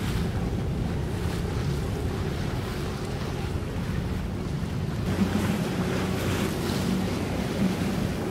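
Wind on the microphone over the steady low drone of a boat engine, with water in the background; the engine drone grows a little stronger about five seconds in.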